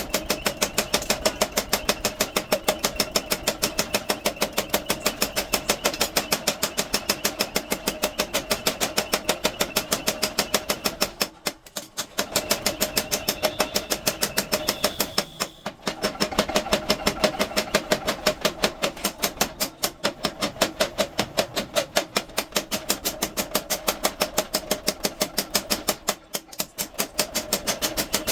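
Mechanical power hammer pounding hot bearing steel in rapid, regular blows, several a second, each with a metallic ring. It stops briefly three times.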